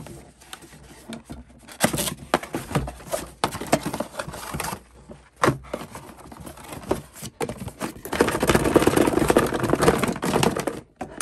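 Cardboard packaging being handled and opened by hand: scattered taps, knocks and flap scrapes, then a few seconds of denser scraping and rustling near the end as the cardboard is pulled apart.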